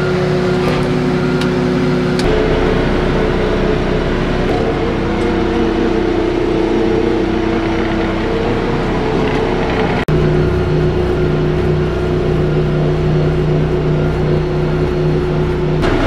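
Diesel engine of a Sakai padfoot compactor roller running steadily, heard from inside its cab. The engine note shifts about two seconds in and again about ten seconds in, with a few sharp clicks near the start.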